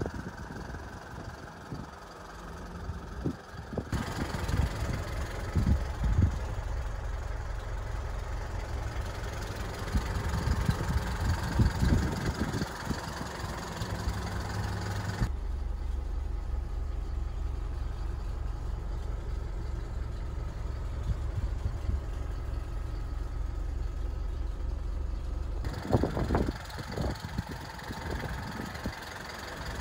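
Isuzu NLR200 light truck's diesel engine idling steadily, with gusts of wind buffeting the microphone; the sound changes abruptly a few times.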